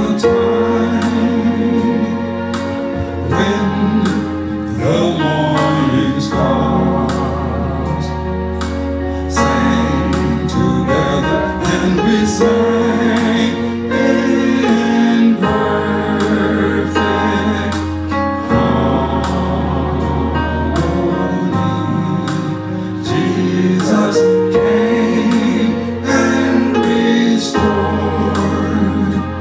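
Gospel praise song: voices singing with vibrato over accompaniment with a steady beat and long held bass notes.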